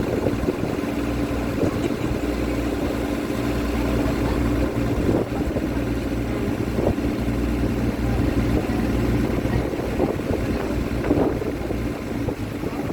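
Tour boat's engine running steadily under way, a continuous drone, with wind buffeting the microphone and water rushing past.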